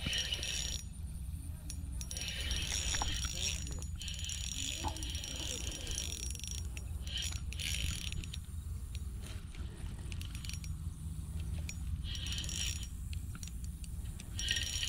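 Spinning reel being cranked in short spells, its gears whirring, while a hooked snakehead is reeled in.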